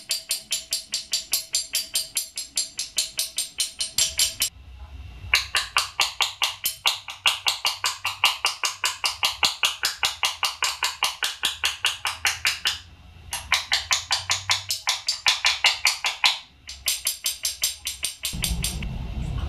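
A motorcycle brake caliper, hose still attached, being tapped rapidly and lightly with a hand tool, about four to five sharp knocks a second in several runs with short pauses. The caliper is knocked to shake trapped air bubbles loose so they rise up the brake line during bleeding.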